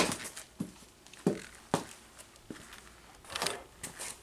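A Panasonic speaker being smashed: a series of separate sharp knocks and cracks, about five or six, with a longer crackling crunch near the end.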